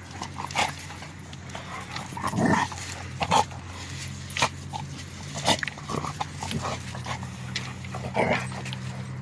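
Two puppies play-fighting: scattered scuffling and short dog sounds, with a few brief louder bursts, over a steady low hum.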